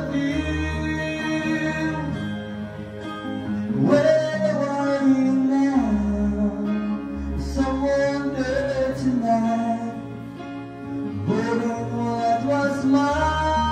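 Live band: a man singing into a microphone in long held notes, accompanied by acoustic guitar and an electric keyboard.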